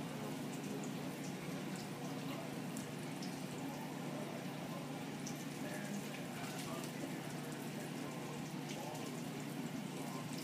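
Steady sizzling and crackling of food cooking in a pan on the stove, with many small scattered pops.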